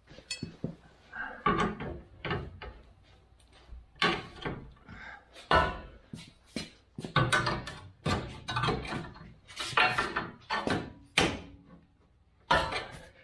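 A steel pry bar clanking and scraping against the steel bumper bracket on the truck's rear frame in a run of irregular knocks. The bracket is being levered to bend it loose where a weld still holds it.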